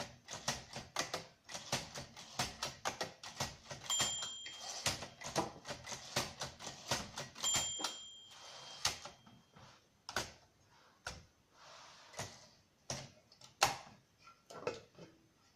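Olympia SM4 manual typewriter being typed on: a rapid run of sharp key strikes, with the margin bell dinging once about four seconds in and again a few seconds later, then slower, sparser keystrokes in the last few seconds.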